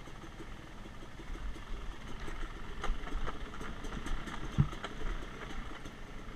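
Yamaha YZ250X two-stroke dirt bike engine running at low revs over rocky singletrack, with scattered knocks and clicks from the bike on the rocks. One sharp thump a little past halfway is the loudest sound.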